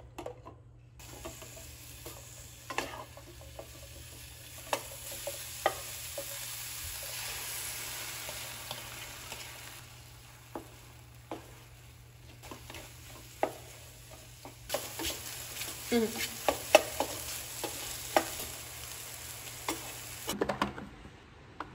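Sliced mushrooms sizzling in oil in a nonstick frying pan, with a wooden spatula scraping and tapping against the pan as they are stirred. Beaten egg goes in partway through and is scrambled with the mushrooms: the sizzle quietens briefly, then comes back with busier stirring clicks.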